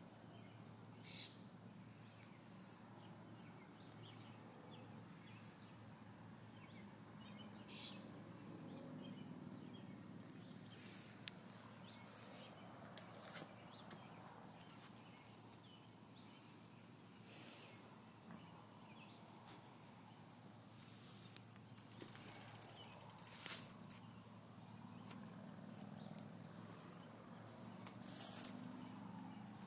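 Near silence: faint outdoor background hiss with about six brief, sharp, high-pitched scratchy noises scattered through it.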